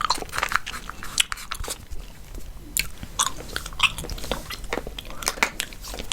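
Chewing gum close to the microphone: irregular wet smacks and clicks of the mouth.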